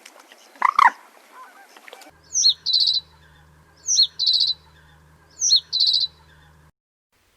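Bird calls: one loud call about a second in, then a high chirp followed by a fast trill, repeated three times about a second and a half apart, over a low steady hum.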